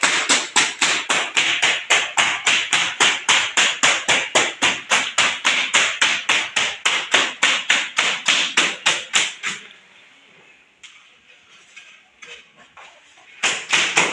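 Rapid, evenly spaced hammer-like strikes, about four a second, that stop about ten seconds in and start again near the end after a few scattered knocks.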